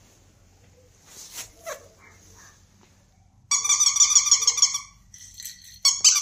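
Bernese mountain dog puppy whining: faint short sounds early, then a loud, high, wavering whine lasting over a second a little past halfway, and two shorter whines near the end.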